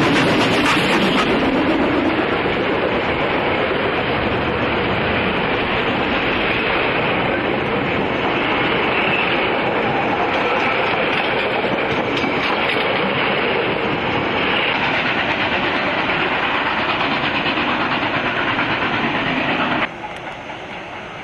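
New Zealand Railways J class 4-8-2 steam locomotive passing close by, its pitch falling as it goes, followed by its carriages rolling past with wheels clacking on the rails. The sound drops off suddenly to a much quieter background near the end.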